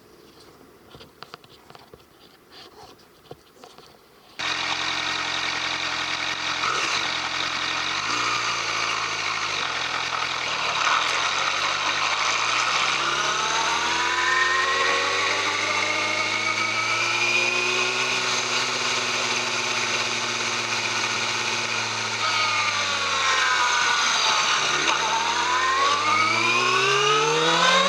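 Yamaha YZF-R6 inline-four engine through its stock exhaust. After a few seconds of faint clicking, the engine sound comes in abruptly about four seconds in. Its engine speed climbs slowly, holds, drops back, and climbs again near the end.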